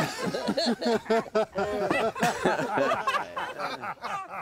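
A small group of people laughing together at a joke, several voices overlapping in chuckles and hearty laughter that dies down near the end.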